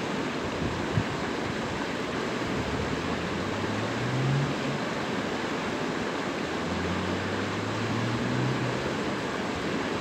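Fast-flowing water rushing and churning in a steady roar of white noise. A low hum comes and goes twice over it.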